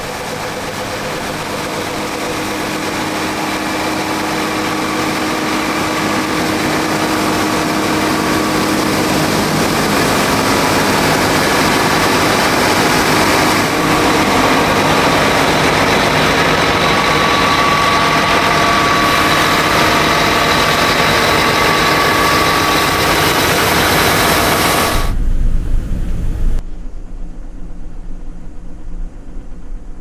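Combine harvester running loud and steady, a rushing machine noise over the engine. About 25 seconds in it cuts suddenly to a quieter low hum inside the cab.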